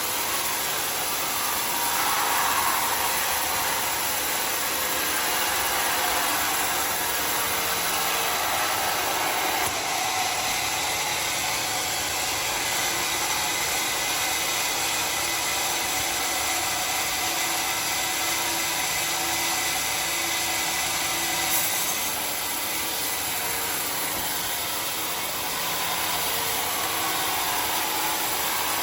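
Homemade sawmill running steadily as it saws dry acacia wood, a continuous even noise with no pauses.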